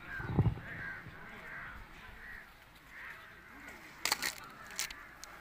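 Crows cawing repeatedly, with a few sharp knocks about four seconds in and again near the end.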